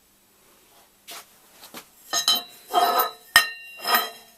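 Metal parts being handled and set down, a series of clinks and knocks from about a second in, several leaving a short metallic ring, the sharpest about three seconds in.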